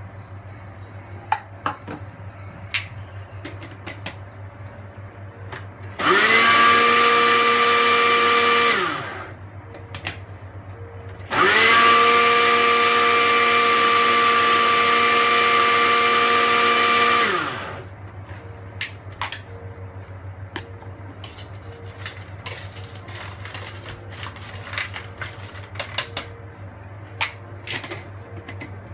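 Moulinex Moulinette blender motor running in two pulses, one of about three seconds and one of about six, blending watermelon chunks with ice cubes. The motor note falls as each pulse winds down, and small clicks come in the quiet stretches between.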